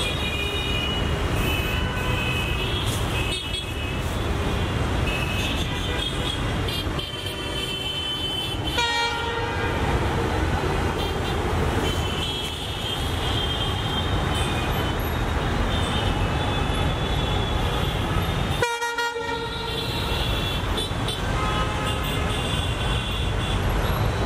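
Diesel locomotive approaching with a steady low engine rumble, sounding its horn repeatedly as it comes. The sound briefly cuts out a little past three-quarters of the way through.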